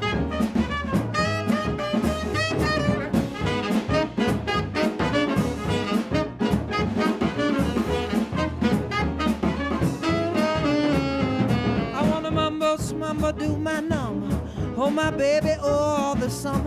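Jazz band playing a swing number: a tenor saxophone plays the lead over drums and bass.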